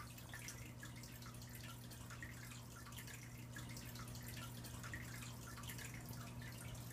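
Faint water trickling and dripping in a running aquarium, irregular little splashes over a steady low hum.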